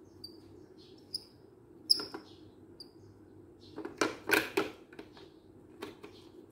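Plastic toy car knocking and clattering on a tile floor as a baby handles it and its wheels: a couple of knocks about two seconds in, a cluster of louder knocks about four seconds in, and one more near the end. Short high bird chirps come several times in the first half, over a steady low hum.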